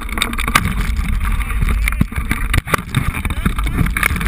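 Wind rushing over a microphone mounted on a hang glider in flight: a steady low rumble with a hiss on top, broken by scattered sharp knocks and rattles.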